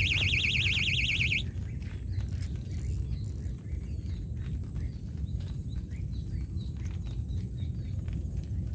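Electronic bite alarm on a rod holder sounding a loud, fast-warbling tone, the signal that a fish has taken the bait. It cuts off suddenly about one and a half seconds in, leaving a low rumble with faint ticks and chirps.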